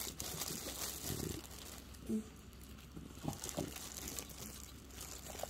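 French bulldog chewing a soft bite-sized ball of food, with faint wet smacks and clicks of its jaws and lips, and one short low-pitched sound about two seconds in.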